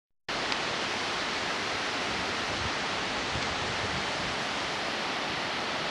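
Strong storm wind of an approaching hurricane blowing steadily, a dense even rushing hiss.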